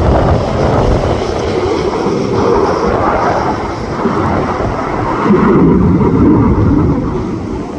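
Eurofighter Typhoon jet fighter flying past, its jet engines a loud, rushing noise. The noise swells suddenly at the start, is loudest a little past the middle, and eases off near the end.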